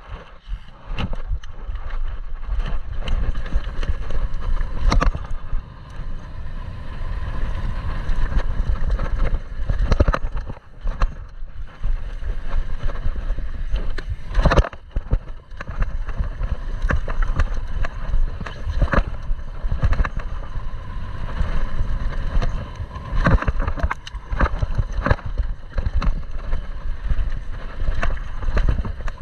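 A YT downhill mountain bike running fast down a rocky dirt trail: steady rushing noise from wind on the microphone and tyres on dirt, broken by frequent sharp knocks and clacks as the bike hits rocks and bumps.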